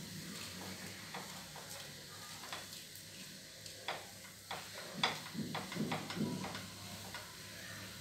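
Wooden spatula stirring and scraping mashed potato masala in a frying pan, over a faint frying sizzle. A run of sharper scrapes and taps comes in the second half.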